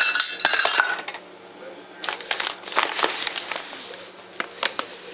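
Stainless-steel measuring cup and bowls clinking against each other. Then, after a short lull, a bag rustling and scattered small clicks and taps as a dry ingredient is poured into the metal measuring cup.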